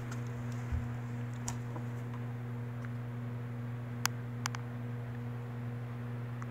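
Steady low hum with a soft knock under a second in and a few light clicks, the sharpest two close together about four seconds in.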